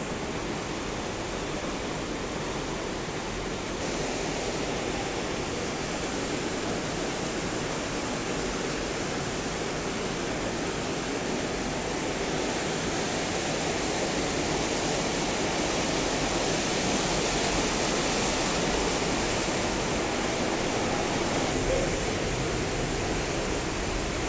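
Steady rushing of sewer water flowing in the channel beneath the walkway, an even noise that grows a little louder about halfway through.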